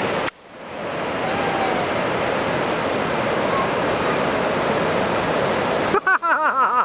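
Ocean surf washing steadily up a sand beach. It cuts out just after the start and swells back within about a second. Near the end a quick run of high-pitched calls joins in.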